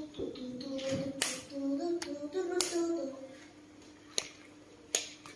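A voice hums a short wavering tune without words for about three seconds, then stops. Four sharp clicks or taps fall through it, the loudest about a second in and two and a half seconds in, and two lighter ones later.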